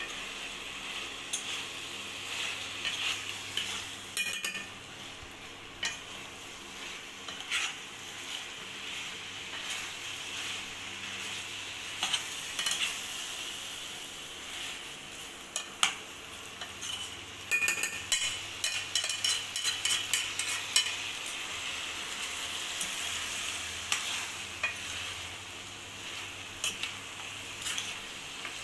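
Chicken pieces frying and sizzling in a pan while a spatula stirs them, with frequent scrapes and clinks of the spatula against the pan, busiest a little past the middle.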